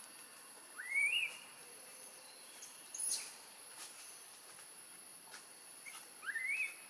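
Baby macaque crying: two short squealing calls that rise in pitch, one about a second in and one near the end, over a steady high insect drone. A brief click falls between them.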